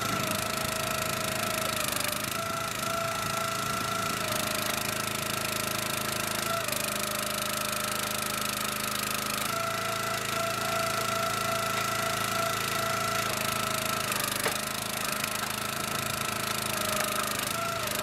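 Log splitter's small engine running steadily while firewood rounds are split, its note shifting a little a few times as the load changes.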